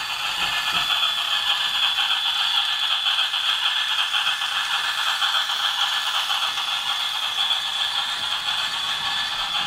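Toy train's small motor and gears running with a steady, high whirring rattle.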